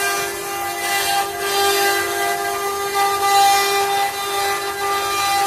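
Windcam multi-spindle CNC wood-carving router running, its spindles giving a steady whine of several held pitches over the hiss of the bits cutting wood.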